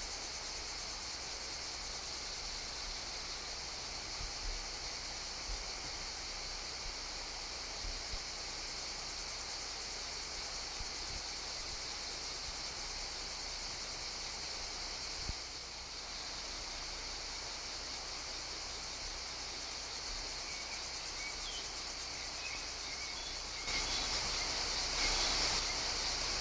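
Steady, high-pitched insect trilling, as of crickets, with a few faint soft knocks early on. It grows louder near the end.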